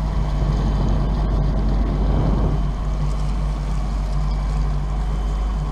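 Motorboat engine running steadily at low speed, a constant low hum as the boat cruises slowly.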